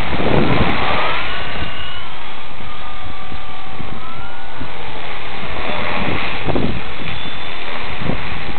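Walkera V400D02 RC helicopter's brushless electric motor and rotor whining, the pitch gliding up and down as the throttle changes, under heavy wind buffeting on the microphone.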